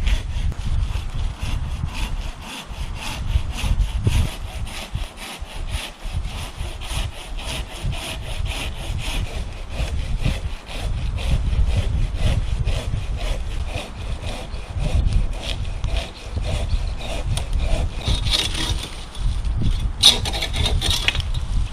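Large Silky KatanaBoy folding hand saw cutting through a log, in steady repeated back-and-forth strokes.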